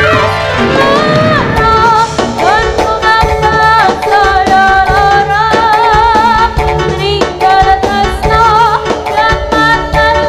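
Live jaranan senterewe music: a woman sings long notes with a wide vibrato over steady drumming and percussion.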